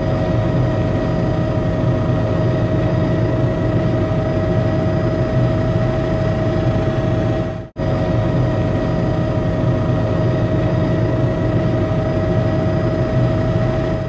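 Steady, loud drone of the aircraft's engine heard from the aircraft itself, with a constant whining tone over a low rumble. It cuts out for an instant about halfway through, then resumes unchanged.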